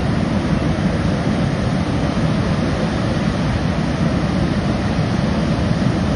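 Loud, steady rush of water in a flood, an even noise without a break.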